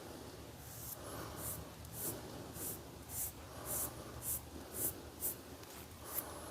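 Rhythmic hand rubbing on the wooden handle of an old screwdriver: light, scratchy strokes, about two a second.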